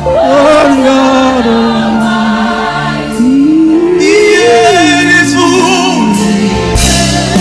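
Gospel choir singing a slow worship song with instrumental accompaniment, with long, sliding sung notes over steady held bass notes.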